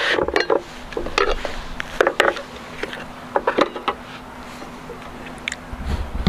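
Kitchen knife and a metal plate knocking and scraping on a wooden chopping board as a watermelon is cut up: a scatter of short irregular knocks and taps.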